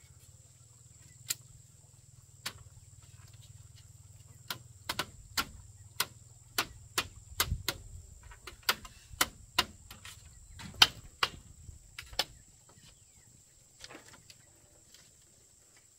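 Repeated sharp knocks of a tool striking bamboo, a few spaced ones at first, then an uneven run of about two a second from about four seconds in until about twelve seconds, with the loudest near eleven seconds.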